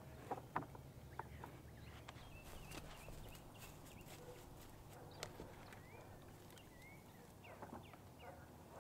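Faint wooden knocks as maple slabs are handled and laid onto a stickered stack, with two sharp knocks under a second in and lighter taps later. Faint bird chirps in the background.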